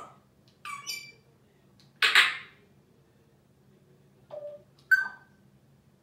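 African grey parrot giving a string of short calls: clear whistled squeaks, and about two seconds in a harsh, loud squawk.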